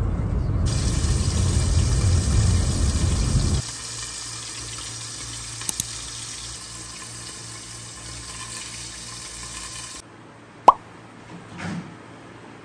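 A car's low road rumble for the first few seconds, then fish frying under a glass lid: a steady sizzle over a low electric hum, with two faint clicks. Near the end the sizzle stops, followed by a sharp click and a soft knock.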